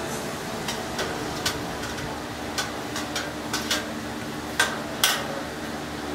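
A long metal spoon stirring and knocking against a stainless steel brew kettle of boiling wort, with about eight sharp clinks spread through the stirring. Under it a propane burner runs with a steady rushing hum.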